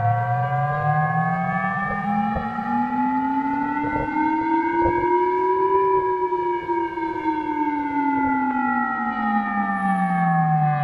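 Civil defense siren wailing in one slow cycle: its pitch rises for about six seconds and then falls again, with a low tone and a higher tone moving together. It is the alarm signal of a mock emergency alert broadcast.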